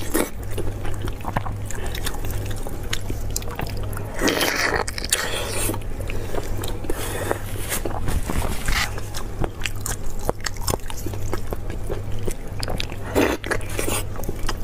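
Close-miked biting and chewing of braised beef knee bone with soft, gelatinous tendon and meat. The mouth sounds are wet and sticky, with many small clicks and a few louder bursts. A steady low hum runs underneath.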